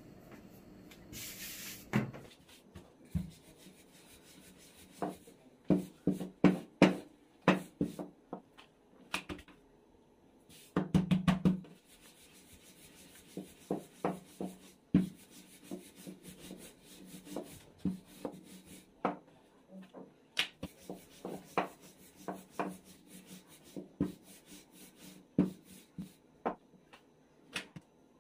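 Hands working baklava dough on a board: irregular soft knocks and rubbing, with a short hiss about a second in.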